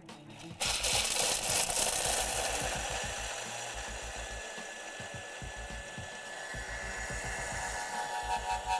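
Countertop food processor switched on about half a second in, its blade grinding hazelnuts at high speed with a loud, steady whirring noise that grows slightly quieter as it runs.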